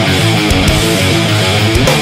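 Instrumental passage of a heavy rock song: electric guitars play a riff of held, stepping notes over bass guitar, with steady drum hits.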